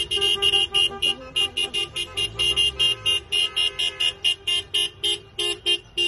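Car horns honking in a rapid string of short toots, about five a second, from cars driving past in a convoy, with a passing car's engine underneath.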